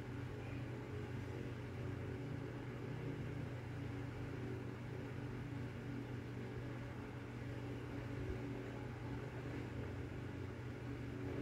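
A steady low hum that does not change throughout.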